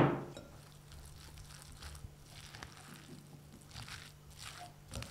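A sharp knock with a short ring at the very start, then wooden chopsticks stirring sticky cooked rice with tuna and mayonnaise in a glass bowl: quiet, irregular squishing and scraping strokes.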